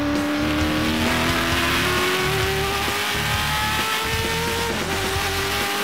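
Corvette C6 race car's V8 engine heard from inside the cockpit, accelerating hard with its pitch climbing, dropping at an upshift about a second in and again near the end.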